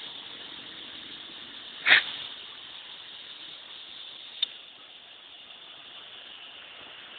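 Steady hiss with one short, sharp knock about two seconds in and a faint tick a little after four seconds.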